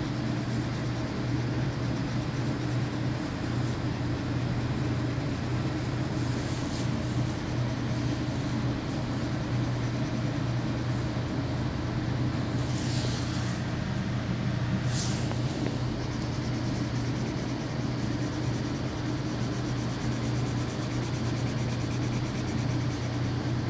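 Steady low rumble and road or track noise of a moving vehicle, heard from inside. Two short hisses come a little past halfway.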